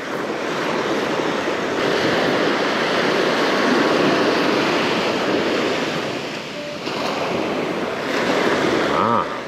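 Small waves breaking and washing up onto a sandy beach, a steady surf rush that swells and eases.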